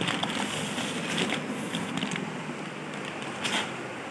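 Black plastic bag rustling and crinkling as it is handled, with scattered crackles and a louder rustle about three and a half seconds in.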